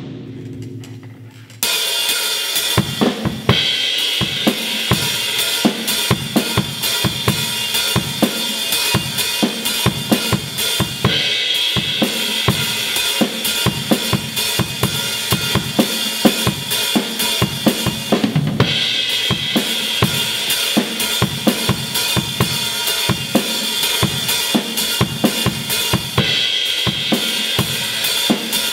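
Acoustic drum kit played with sticks: bass drum, snare and cymbals. After a short lull with a fading ring, a steady, busy groove starts about a second and a half in and keeps going, with the cymbal pattern changing a few times.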